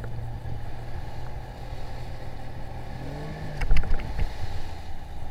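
Outboard motor of an inflatable coach boat running steadily, revving up briefly about three seconds in and easing back, over wind and water noise. A few sharp knocks near four seconds in.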